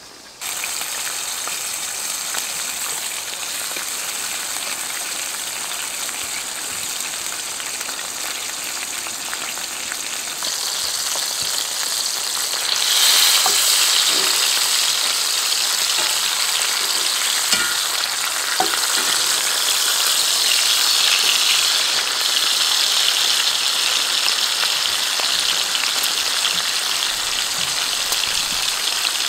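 Food frying in a pan, a steady sizzle that grows louder about ten seconds in and again a few seconds later, with a few faint ticks.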